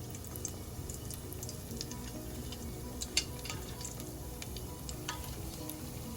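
Sesame-coated dough balls deep-frying in hot oil: a steady sizzle with scattered sharp pops and crackles, the loudest about three seconds in. Soft background music runs underneath.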